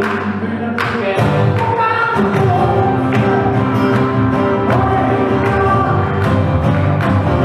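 Live acoustic music: strummed acoustic guitars with singing over them, in a steady rhythm.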